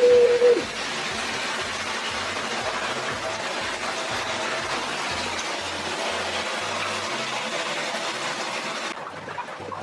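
Tap water pouring steadily into a large bathtub, a constant rush that drops away about nine seconds in. A loud steady tone ends about half a second in.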